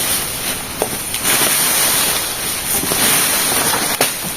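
Peach palm leaves rustling as broken foliage is handled and cleared, with two sharp snaps, about a second in and near the end, over a steady high-pitched hiss.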